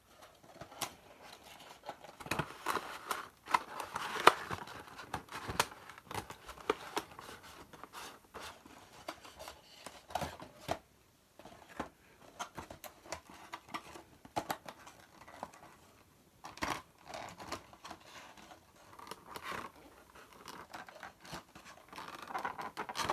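A cardboard model-aircraft box being opened by hand and its clear plastic tray pulled out: irregular scraping, tapping and crinkling of cardboard and plastic, busiest in the first few seconds.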